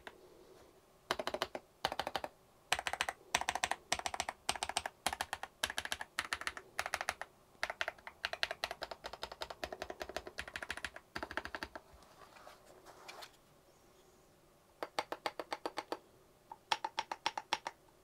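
Typing on a SKYLOONG GK104 Pro mechanical keyboard with KTT Rose Silver linear switches and Twilight keycaps: runs of rapid keystrokes broken by short pauses. The switches give a nice clunky sound, not too loud, with a little dampening.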